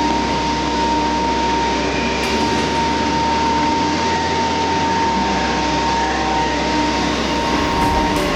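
CNC tenoning machine running, its router spindles giving a steady high whine over a continuous hiss.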